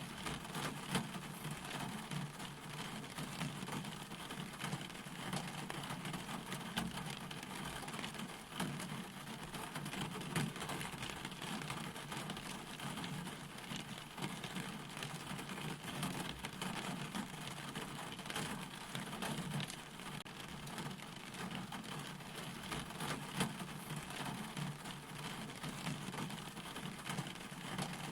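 Steady rain, with a dense scatter of separate drop hits over an even hiss.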